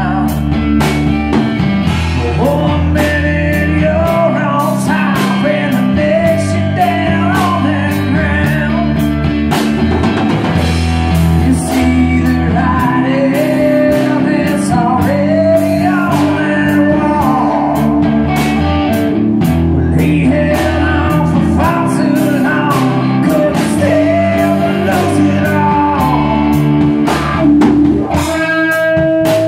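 A band playing a blues-rock song: drum kit and guitar with a singer's voice.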